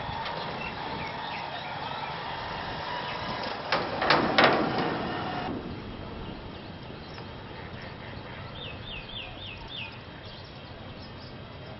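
Motorcycles crossing the deck of an unfinished steel railway bridge, an engine running under outdoor noise, with a short cluster of loud knocks about four seconds in. After an abrupt change in the sound, a bird chirps five times in quick succession.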